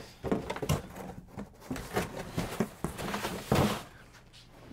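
Cardboard packaging inserts rustling, scraping and knocking as they are lifted out of a shipping box and set down, in irregular bursts, the loudest about three and a half seconds in.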